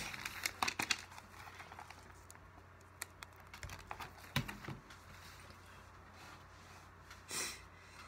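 Spiral-bound paper notebook being handled: a quick run of sharp clicks and paper rustles in the first second, and more scattered clicks and rustles about three to four and a half seconds in. A short breathy hiss near the end.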